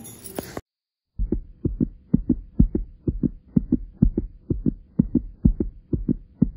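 Heartbeat sound effect: pairs of low thumps, about two pairs a second, over a faint steady hum. It starts about a second in, after a short dead silence.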